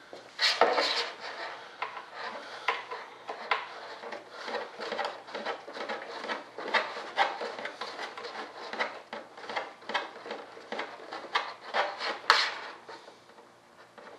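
Small metal hardware and a hand tool clicking, clinking and scraping against each other as a landing-gear leg is fastened into a model jet's wing. The louder clatters come about half a second in and again near the end.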